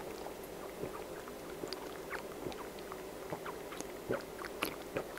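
Gulping and swallowing from a jug close to a headset microphone: irregular soft clicks and mouth noises over a faint steady hum.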